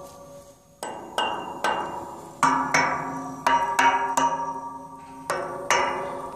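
Wooden stick striking a hollow metal pipe railing, about ten blows in an uneven rhythm, played as music. Each blow rings with a bell-like tone that fades away, the strikes at different pitches.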